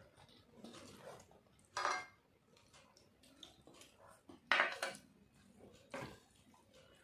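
Ceramic dishes clinking and knocking a few times as people eat rice by hand from plates and a small bowl; the loudest knock comes about halfway through.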